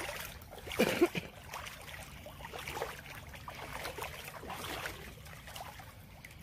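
Wading steps through a shallow, rocky creek: water sloshing and splashing irregularly, loudest about a second in.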